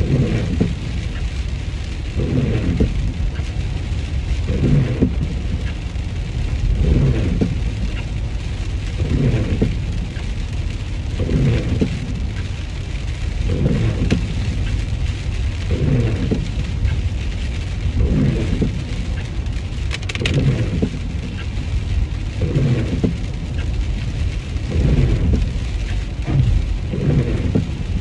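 Inside a car driving in the rain: steady low road rumble and the hiss of rain on the car, with a windscreen wiper sweeping at a regular pace about once every two seconds.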